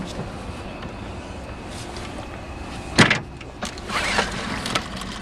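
Yamaha 9.9 hp outboard motor being started, with a sharp, loud burst about three seconds in.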